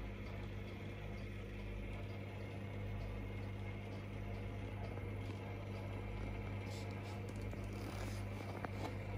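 Steady low mains-frequency hum with an even hiss from running aquarium equipment, with a few faint clicks near the end.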